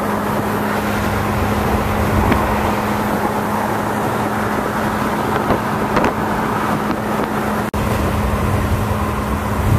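Car travelling at freeway speed, heard from inside the cabin: steady road and engine noise with a constant low hum, briefly cut off about three-quarters of the way through.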